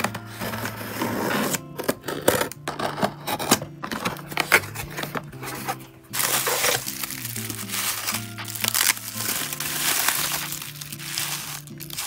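Soft background music over the rustle and crinkle of a cardboard parcel being opened: a pen tip slitting the packing tape, then the cardboard flaps and plastic bubble wrap being handled, with a steady crinkling from about halfway through.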